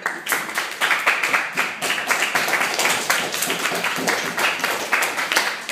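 A classroom of students applauding, with one pair of hands clapping close by: dense, irregular claps that keep up steadily.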